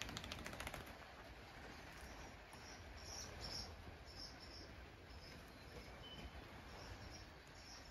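Faint birdsong: short high chirps repeated on and off. A quick run of small clicks or rustles in the first second.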